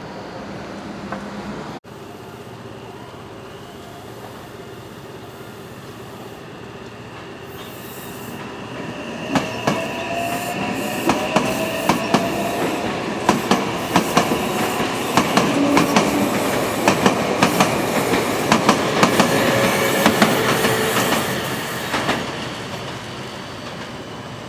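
A Meitetsu electric train passing close by: its noise builds, then the wheels click over rail joints many times with a steady high wheel squeal, and it fades near the end.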